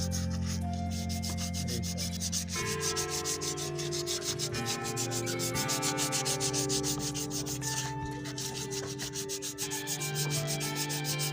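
Sandpaper rubbed by hand over a motorcycle's drum-brake shoe linings in quick, even back-and-forth strokes, a rapid scratchy rasping that cleans the lining surface so the brake grips properly.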